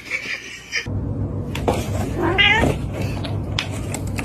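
A cat meowing: one drawn-out, wavering call about two seconds in, over a steady low hum.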